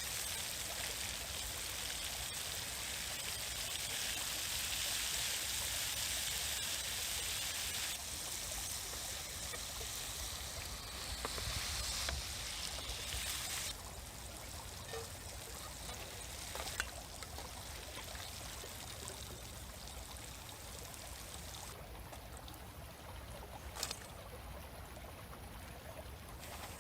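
Beef liver frying in hot oil in a pan: a steady hissing sizzle that drops in level a few times, with a couple of light clicks near the end.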